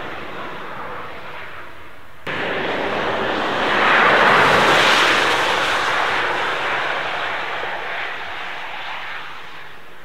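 Rimac Nevera electric hypercar passing at speed, heard as a rush of tyre and wind noise with no engine note. The sound jumps louder about two seconds in, swells to its loudest as the car goes by around the middle, then fades as it drives away.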